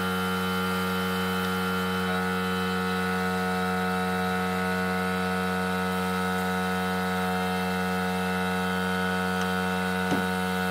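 Air compressor motor running with a steady, even hum, supplying the spray gun. A single wooden knock about ten seconds in as the hive's lid is lowered shut.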